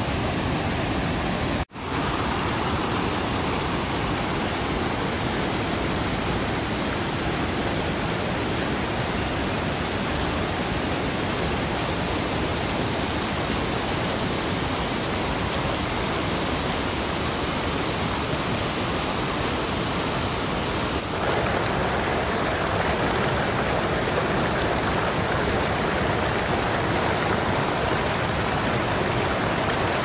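Kuthungal waterfall in full monsoon flood: a loud, steady rush of falling water and the swollen river below. The sound drops out for an instant about two seconds in.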